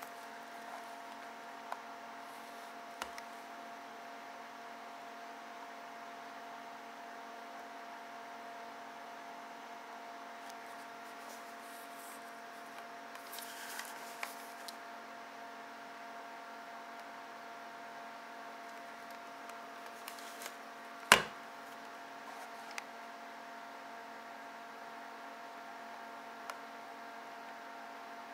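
Steady faint electrical hum with several constant tones, over which a few small clicks come from handling an 8mm film camera; one sharp, much louder click comes about two-thirds of the way through.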